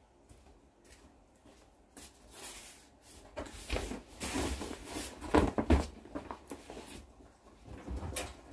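Close-up rustling, knocks and footsteps on a tiled floor as a laundry basket is handled and set down. Faint at first, then busier from about two seconds in, with the loudest knocks around the middle.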